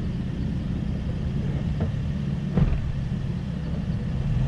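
Toyota FJ Cruiser's 4.0 L V6 engine idling with a steady low rumble. A single sharp knock sounds about two and a half seconds in.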